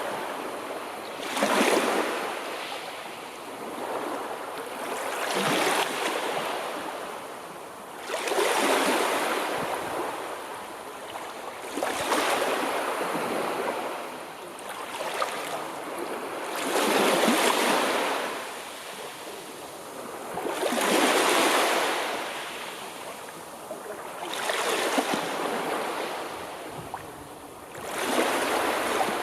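Sea surf: waves breaking one after another, each a rush of water that swells and fades, about every three to four seconds.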